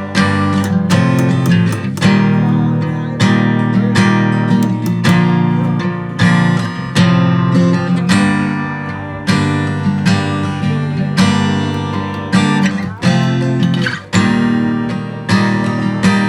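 Background music: acoustic guitar strumming a steady rhythm, with no singing.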